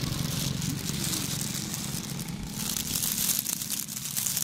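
Thin plastic bag crinkling and rustling as it is handled, the crackling thickening about halfway through, over a steady low hum.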